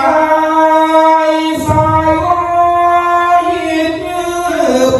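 A man singing a slow Thai verse into a handheld microphone, holding long drawn-out notes that slide from pitch to pitch, in the manner of a hong khwan (spirit-calling) chant for an ordination candidate.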